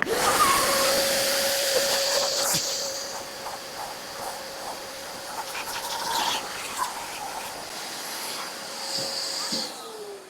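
A 30-litre vacuum cleaner's motor switched on, running with a steady whine over rushing air, with a few small knocks along the way. Near the end it is switched off and the whine falls in pitch as the motor spins down.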